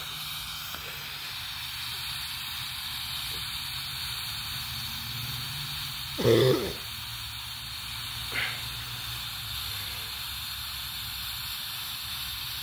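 Large black smoke bomb burning with a steady hiss. About six seconds in, a short human vocal sound rises briefly above it.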